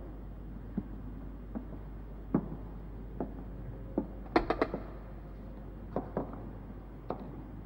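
High-heeled shoes clicking on a wooden floor as a woman walks, about one step every 0.8 s, with a quick run of louder clicks about halfway through, over a steady low hum.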